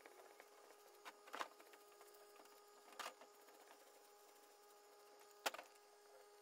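Faint steady hum with a few sharp clicks and knocks, the loudest about five and a half seconds in.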